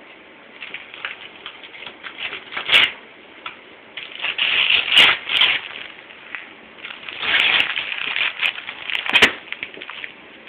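Gift wrapping paper being torn off a present and crumpled by a child's hands, in several irregular bursts of ripping and crinkling.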